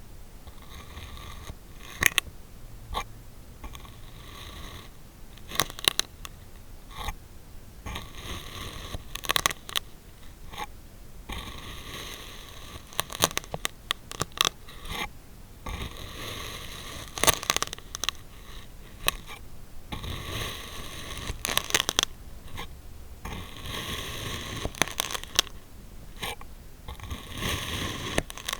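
Kinetic sand being cut and crunched: repeated gritty scraping strokes of a second or two each, with sharp crackling clicks.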